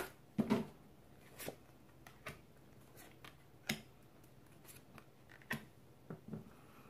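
Tarot cards being drawn from the deck and laid down on a table: a scattering of short, faint card snaps and slides, spaced irregularly about a second apart.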